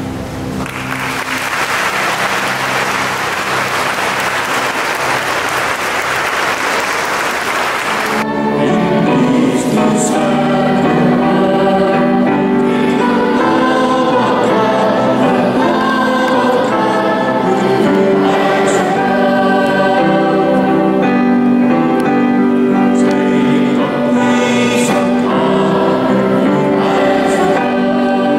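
Audience applauding for about eight seconds. The applause cuts off suddenly and a choir singing with instrumental accompaniment follows.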